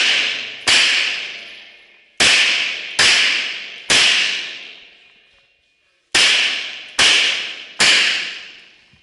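Pistol shots: a single shot, then a string of three about a second apart, a pause of about two seconds, and another string of three. Each shot is followed by a long echo that fades out.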